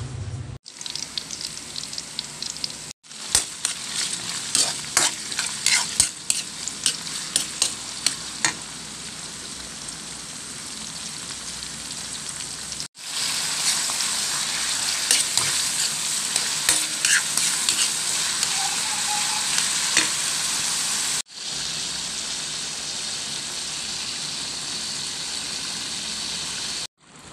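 Oil sizzling in a pan as tomatoes, onions and garlic sauté, with a spatula stirring and clicking against the pan. The sizzle stops and starts abruptly several times.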